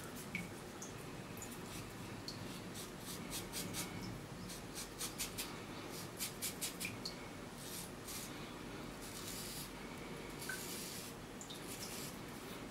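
A Personna Monsieur Charles shavette razor scraping through scalp stubble over shaving gel. It makes runs of quick, faint, crisp scratches, with a couple of longer scrapes in the second half.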